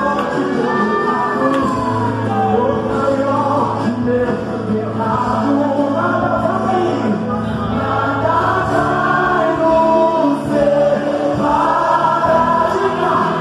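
Live gospel worship music: a man sings the lead through a microphone over accompaniment with long held chords, and the congregation sings along.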